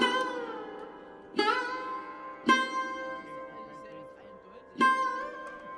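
Music on a plucked string instrument: slow single notes struck about a second or two apart, each bending in pitch and ringing on over a steady drone.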